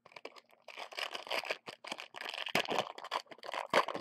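A plastic trading-card pack wrapper crinkling and being torn open by hand: a dense run of crackles that starts about a second in, with a sharp crackle near the end.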